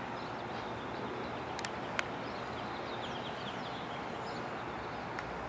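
Steady hum of street traffic with cars passing close by, small birds chirping over it, and two sharp ticks around two seconds in.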